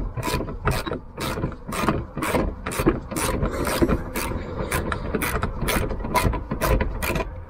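Socket ratchet wrench clicking in a steady run of short strokes, about three a second, as a bolt is worked loose.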